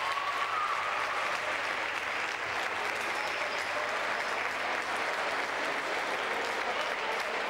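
Spectators applauding steadily, an unbroken patter of many hands clapping, greeting the teams as they take the court before the match.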